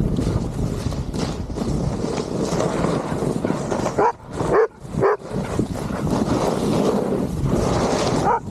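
Snowboard sliding over snow, a steady scraping rush. Several short dog barks come about four to five seconds in and once more near the end.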